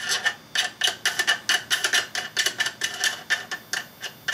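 Rapid, irregular metallic clicking, about five or six sharp ringing ticks a second, as a small metal fitting is turned by hand on the threaded muzzle end of an AR-15 barrel.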